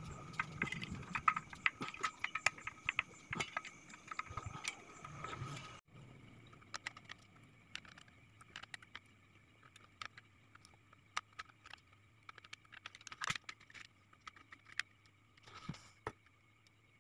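Workbench handling of small metal parts: pliers and transistor leads clicking and clinking against an aluminium heatsink, busy for the first few seconds, then sparse light clicks after a sudden cut. A faint steady hum runs underneath.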